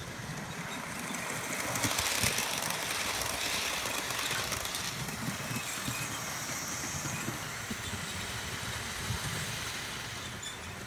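Model railway locomotive running past along the track: the whir of its small electric motor and the clicking of its wheels over the rails grow louder over the first couple of seconds, hold through the middle as it passes close by, and ease off toward the end as it moves away.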